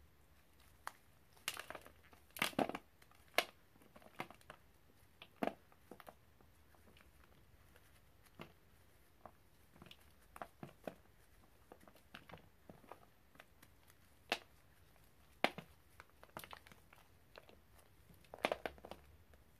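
A gloved hand squeezing and crumbling dried, chalky powder shapes into crumbs: irregular dry crunches and crackles, with clusters of louder ones about two seconds in and again near the end.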